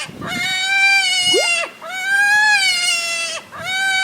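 MFK Double Slash diaphragm predator call blown in long, wavering, high wails, the 'Old Cotton Jolly' series imitating a rabbit in distress. The wails come one after another, about every second and a half, with short breaks between them.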